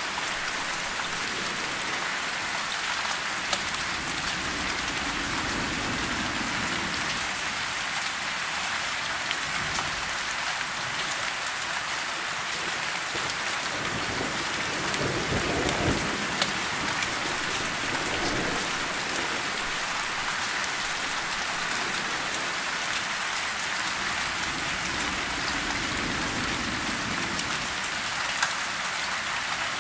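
Steady rain falling on broad tree leaves, an even hiss of many drops. About halfway through, a low rumble of distant thunder swells and fades.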